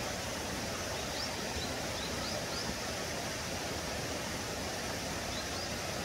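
Steady rushing of stream water, with a few faint, short, high rising chirps about a second in and again near the end.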